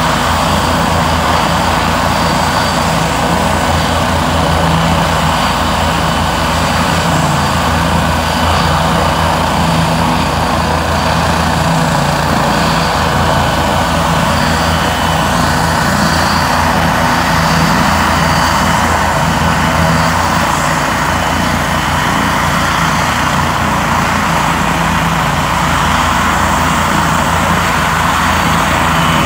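Helicopter flying low overhead: its rotor and engine make a loud, steady din with a fast low beat.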